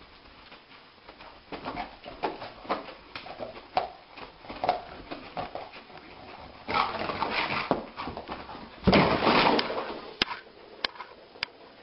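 A sleeping dog whimpering and yipping in a dream, apparently a nightmare, its legs twitching as if running. Near the end come two longer, louder bouts of scuffling and thrashing as it scrambles up off the carpet, the second the loudest, followed by a few sharp knocks.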